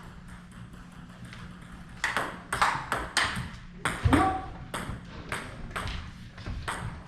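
Table tennis rally: the plastic ball struck by rubber-faced rackets and bouncing on the table in quick sharp clicks, about two a second from about two seconds in, with a steady low hum underneath.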